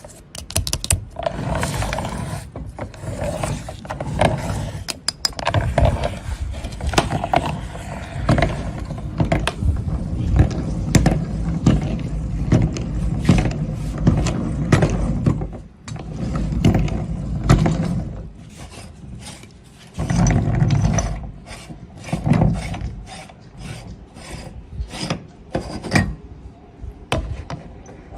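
Meat grinder crushing an object fed into it: dense, irregular cracking and crunching over the churn of the grinder's mechanism, easing off briefly twice before picking up again.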